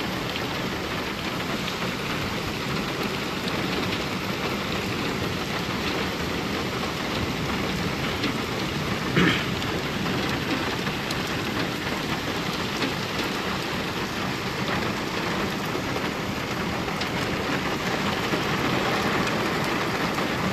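Heavy rain falling steadily: a dense, even hiss of a downpour, with one brief knock about nine seconds in.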